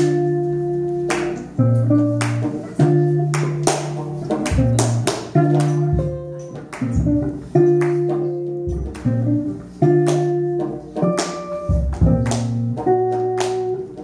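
A post-jazz/experimental group playing live, guitar among the instruments: a repeating figure of held low notes that change roughly every second, each new note opening with a sharp attack.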